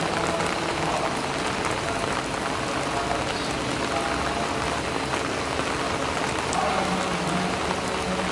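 Steady rain falling on broad lotus leaves: a dense hiss with many small ticks from single drops striking the leaves.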